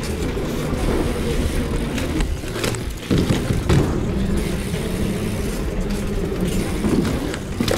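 Bicycle tyres rolling over a wooden plank walkway: a steady low rumble with a few sharp knocks as the wheels cross the boards.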